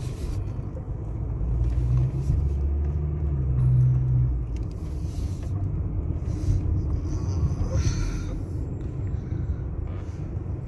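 Car engine and road rumble heard from inside the cabin while driving, swelling about two to four seconds in.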